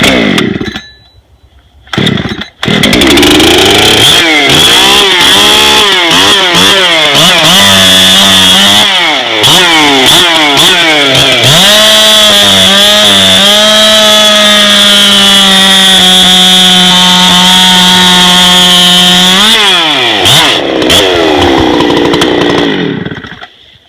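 Husqvarna 372 two-stroke chainsaw fitted with a bow bar, pull-started and catching about two and a half seconds in, then run at full throttle through a cut in wood, its engine pitch dipping and recovering under load. Near the end the throttle is released and the engine note drops away.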